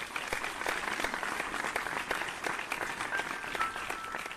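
Audience applauding, a dense patter of many hands clapping at an even level.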